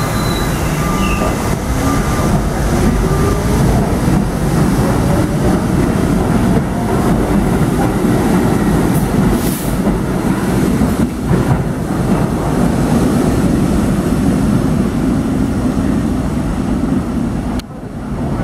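R68 subway train pulling out of the station: its motor whine rises in pitch over the first few seconds as it accelerates, over a loud, steady rumble of wheels on the rails as the cars pass. The sound drops off abruptly near the end.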